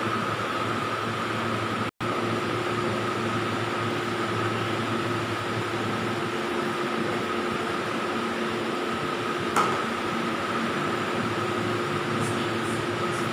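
A steady mechanical hum, with a single sharp click a little under ten seconds in.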